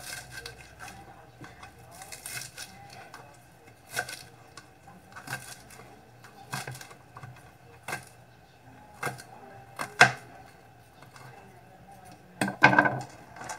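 Kitchen knife chopping chives: sharp, unevenly spaced knocks of the blade, the loudest about ten seconds in, with a quick run of cuts near the end.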